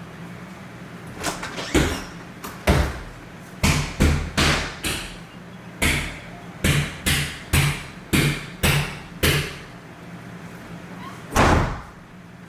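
Pots banged and struck repeatedly: about fifteen sharp, ringing bangs at irregular intervals, with a last, longer bang near the end.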